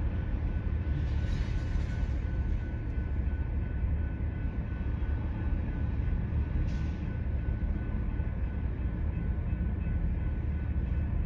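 Freight train of tank cars rolling past at steady speed: a continuous low rumble of wheels on rail with faint steady high tones over it. A brief hiss rises about a second in and again, shorter, near seven seconds.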